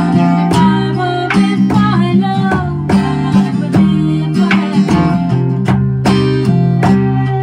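Acoustic English folk music: strummed acoustic guitar with frame drum beats and fiddle, a melody line gliding above a steady rhythm.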